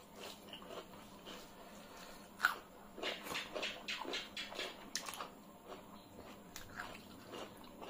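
Close-up eating sounds: chewing and lip smacks, a string of short wet clicks, with one sharp smack about two and a half seconds in and a dense cluster through the middle, along with fingers mixing rice and curry.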